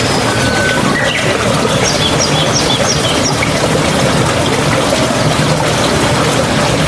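Flowing water with a steady rush, with songbirds calling over it. A short whistle comes near the start, then a quick run of about five high chirps two to three seconds in.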